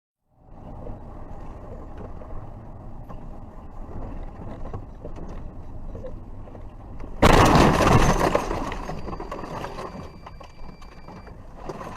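Steady road noise of a moving car, then about seven seconds in a sudden loud crash of a car collision, whose noise dies away over a couple of seconds.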